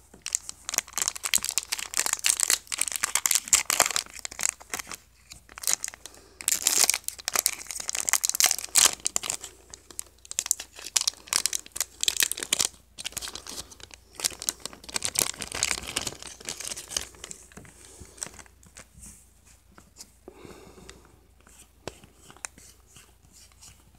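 A foil trading-card booster pack being torn open and crinkled in the hands, in several loud bursts of tearing and crackling over the first two-thirds, then quieter rustling as the cards are handled.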